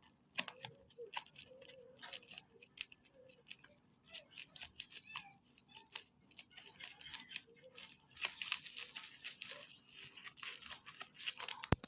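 Packaging being torn and crinkled by hand, quiet scattered rustles and clicks that grow denser and louder about eight seconds in.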